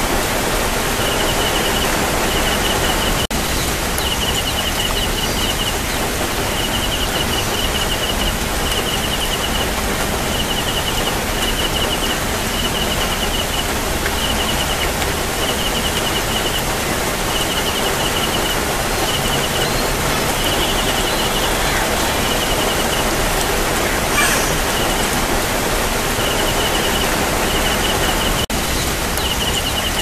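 A steady outdoor hiss with a small animal's short, high pulsed chirp repeating about once a second. The chirping pauses for a few seconds about two thirds of the way through.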